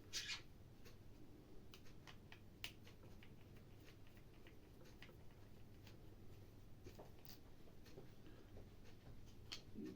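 Faint, scattered small clicks and scrapes of hand work as the cable clamp is unscrewed and taken off inside the opened corded impact drill.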